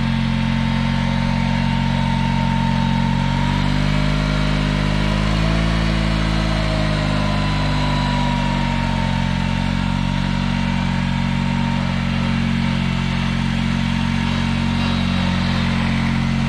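Honda 3813 riding lawn mower's engine running steadily as the mower is driven, its speed sagging briefly and picking back up around the middle.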